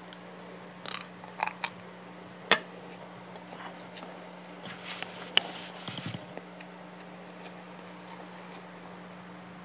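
Close-miked chewing of fried rice with crispy chicharon bituka (deep-fried pork intestine): a few sharp crunches and mouth clicks, the loudest about two and a half seconds in and again just past five seconds, over a steady low hum.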